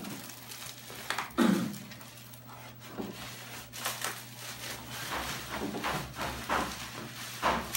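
Bubble wrap and plastic packaging being pulled and torn open around a boxed parcel, an irregular run of crinkles and rustles, with one louder thump about a second and a half in.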